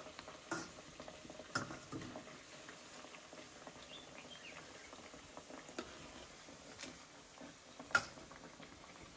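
Bhajias deep-frying in oil in a metal kadai, a quiet steady sizzle, with a few sharp clicks of a metal slotted spoon against the pan as the fritters are turned, the loudest near the end.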